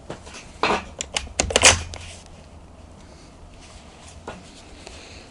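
Yugoslavian M48 Mauser-pattern bolt-action rifle being handled after loading: a handful of sharp metallic clicks and clacks in the first two seconds, as the bolt is worked to chamber a round.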